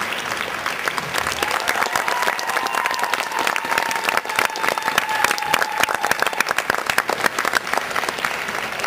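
Arena audience applauding: many hands clapping in a dense, steady patter.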